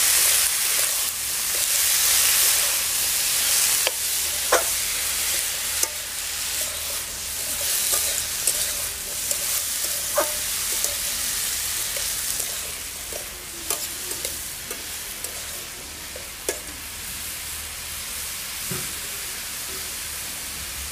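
Diced bottle gourd frying in oil in a metal wok, sizzling, while a metal spatula stirs it, scraping and clinking sharply against the pan now and then. The sizzle grows quieter over the second half.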